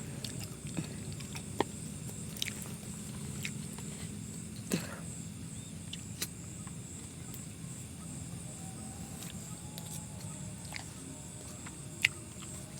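Night ambience: a steady high insect chirring over a low steady hum, with a few scattered small clicks and knocks.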